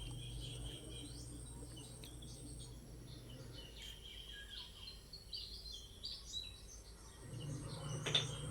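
Small birds chirping in short, scattered calls over background noise. A low steady hum drops away about three and a half seconds in and comes back near the end, where a single sharp click sounds.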